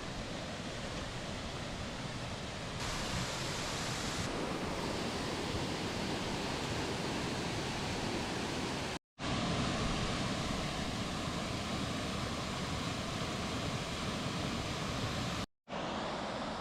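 Steady rush of white water from rapids and a waterfall, breaking off for a moment twice.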